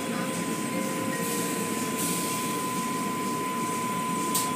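Automatic car wash heard from inside the car: spinning cloth brushes and water spray working over the body and windscreen, a steady mechanical rumble with a thin high tone running through it. A short sharp click comes near the end.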